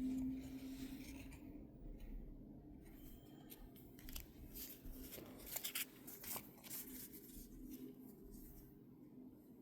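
Pokémon trading card packs and cards being handled: crinkling, rustling and small clicks, busiest in the middle.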